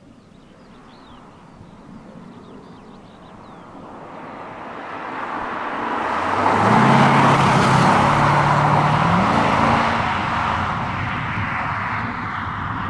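2005 Corvette C6's 6.0-litre LS2 V8 driving past under acceleration: the engine and tyre sound swells as the car approaches, the engine pitch climbs about seven seconds in as it passes close by, then the sound eases off as it pulls away.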